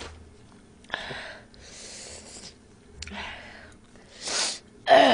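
A woman breathing hard through her mouth against the burn of very spicy noodles: several sharp breathy hisses, then a loud voiced gasp falling in pitch near the end.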